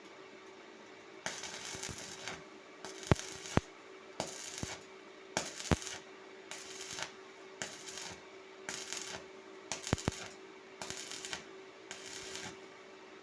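A welding arc in about ten short crackling bursts, each roughly half a second long, one every second or so, with a few sharp clicks among them: a run of short stitch or tack welds.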